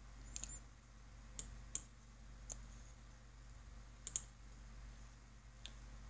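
Computer mouse button clicking about six or seven times at irregular intervals, short sharp clicks over a faint low steady hum.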